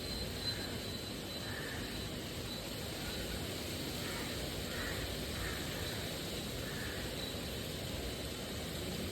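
A toad croaking in short calls every second or so over the steady hiss of heavy rain.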